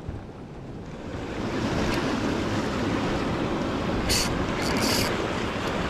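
Sea surf washing and breaking against the jetty rocks, with wind on the microphone. The wash swells up about a second in, and two short hisses come near the end.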